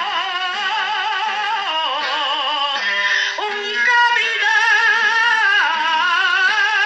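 Aragonese jota sung by a high solo voice, with wide vibrato on long held notes and ornamented turns between them, over a low steady accompaniment, from an old recording with the treble cut off.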